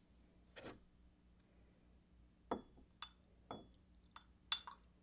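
Small white ceramic tea cups clinking lightly as they are lifted, tipped and set down on the tea tray: a handful of soft taps, a few with a brief high ring.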